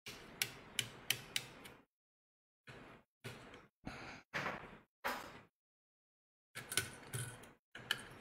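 Faint clicks and scraping as a laptop motherboard and its parts are handled with gloved hands. There are four quick clicks in the first second and a half, several short scrapes or rustles in the middle, and another run of clicks near the end.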